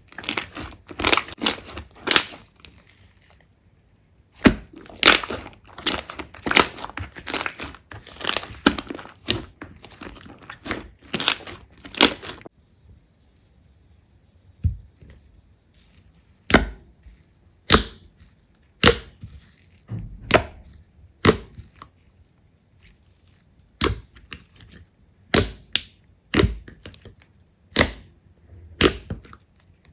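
Slime being played with by hand: dense crackling and clicking at first, then, after a short lull, single sharp pops about once a second.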